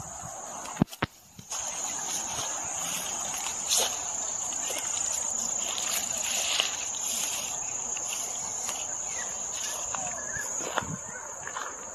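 Insects singing in a steady high-pitched drone. A sharp click about a second in, followed by a brief dropout, is the loudest moment.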